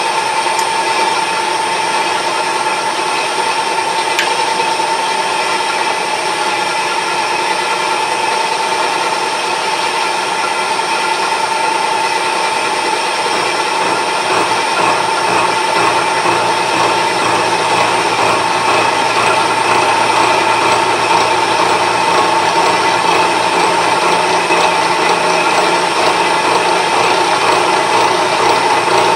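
Milling spindle driving a toothed gear cutter through a gear blank, cutting gear teeth: a loud, steady machining whine with a strong high tone throughout. A lower hum comes in about halfway.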